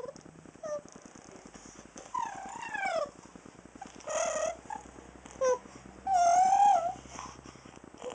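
A series of about five high-pitched vocal whines and squeals that slide up and down in pitch. The loudest and longest comes about six seconds in.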